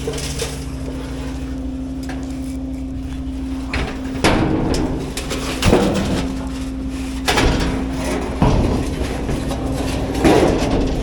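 A machine engine running steadily, with several loud bangs and clatters of debris being handled, irregularly spaced from about four seconds in.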